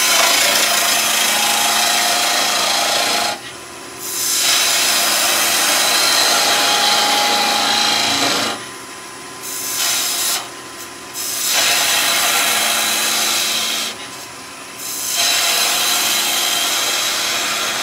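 Turning tool cutting a spinning wood blank on a wood lathe, a steady rasping cut held in four long passes with short breaks where only the lathe's running hum is left. This is a finishing cut tidying the top end of the turned cylinder.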